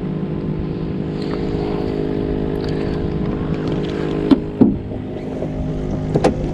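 Electric trolling motor running steadily on spot lock to hold the boat against the wind, a steady hum. Two sharp knocks about four seconds in, and another near the end.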